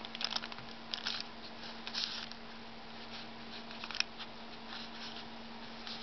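Baking paper crinkling as a hand presses and lifts freshly baked butter rolls on a lined tray, in short crackly rustles about once a second, loudest about four seconds in. A steady low hum runs underneath.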